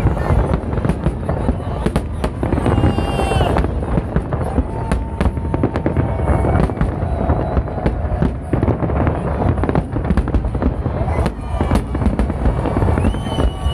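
Massed fireworks of a city salute going off without a break: a dense crackle of many small bursts over a continuous low rumble of heavier booms. Whistling tones glide through now and then.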